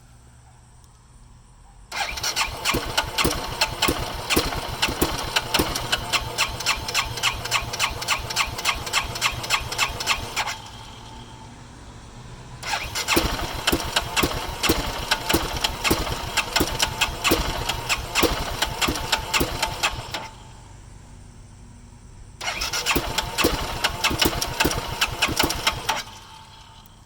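2007 BMW G650X's single-cylinder engine being cranked in three attempts, each several seconds long, with a steady cough and sputter on every stroke but never catching. The sign of a starting fault: the engine will not fully fire up.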